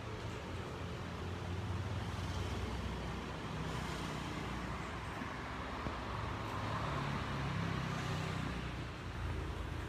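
Street traffic rumbling steadily, swelling twice as vehicles pass.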